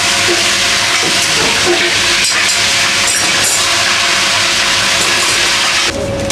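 Water spraying at a commercial dishwashing station: a loud, steady hiss that cuts off near the end.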